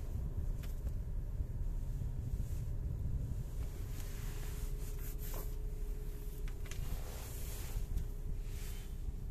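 Steady low rumble and hum inside a Skoda Karoq's cabin, with a few light clicks and brief rustles about halfway through and again near the end.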